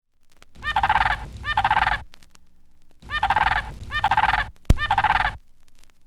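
A recorded sound effect of rapid warbling, gobble-like calls: five short bursts, two and then three, with a sharp click between the last two.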